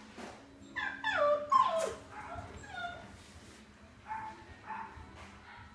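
Rough collie puppy, 53 days old, whining and yelping: a quick run of high calls that each slide down in pitch about a second in, the loudest part, followed by fainter short whimpers.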